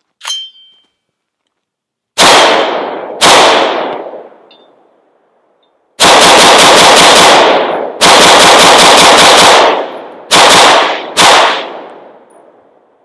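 Aero Precision M4E1 AR-15 rifle, 16-inch .223 Wylde barrel with a Strike Industries King Comp compensator, firing: two single shots about a second apart, then two rapid strings of about five shots a second, each nearly two seconds long, then two more single shots. Each shot trails off in a long echo.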